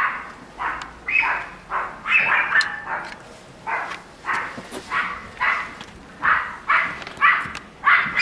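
Yorkshire terrier barking in a rapid, unbroken string, about two barks a second: territorial barking at company arriving at the front door.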